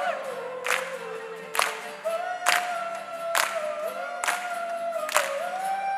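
A large crowd choir singing long held notes, with the singers clapping their hands together on the beat about once a second.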